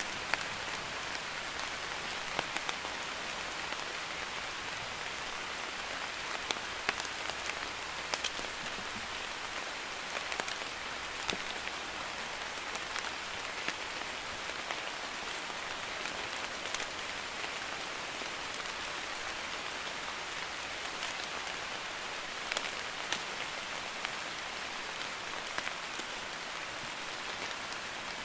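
Light drizzle falling steadily in an even hiss, with scattered sharper drop splashes every second or so.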